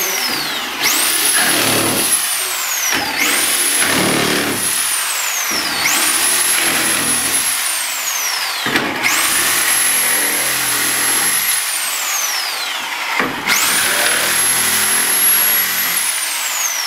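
Bosch RS325 12-amp corded reciprocating saw cutting through wood, its motor whine rising each time the trigger is squeezed and falling as it is let off, about five runs in a row.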